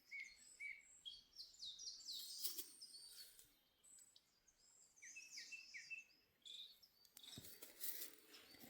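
Faint birdsong: several short high chirps and quick downward-sweeping calls, repeated throughout.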